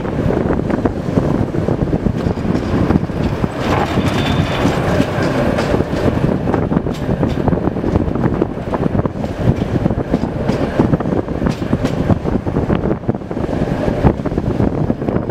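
A 71-623.02 tram running along the track, heard from inside the car: a steady rumble of wheels on rails with frequent short knocks, and a brief high squeal about four seconds in.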